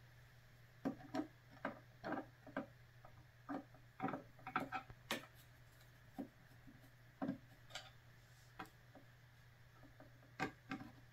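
Faint, irregular clicks and ticks of a screwdriver working out the small barrel-clamp screw on a Daisy 922 air rifle, metal tip against the screw head and receiver.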